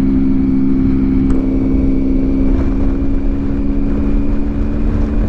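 Triumph Tiger 800's three-cylinder engine running steadily at an even cruising speed, with wind rumble on the microphone.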